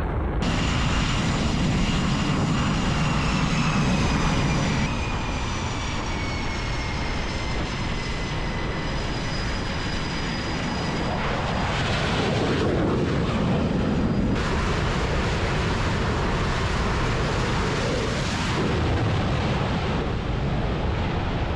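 Jet engines of F/A-18-family fighters running on a carrier flight deck, a steady loud rush with a high whine that slowly falls in pitch over the first half. The sound changes abruptly several times, as between different deck recordings.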